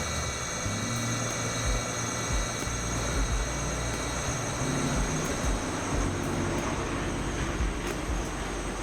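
Kokusan top-discharge centrifuge running, its motor and spinning basket giving a steady, many-toned whine over a rushing noise.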